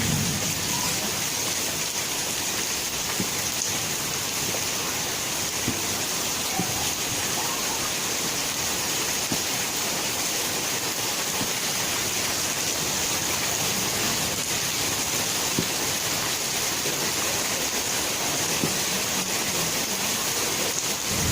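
Steady rain falling, an even hiss that keeps up at one level throughout.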